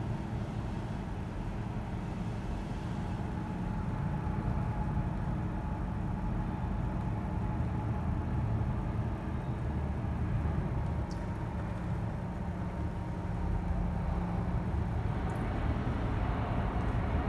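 Saudia Boeing 777 jet engines running with a steady low rumble and a faint whine, growing louder near the end as the airliner powers up for takeoff.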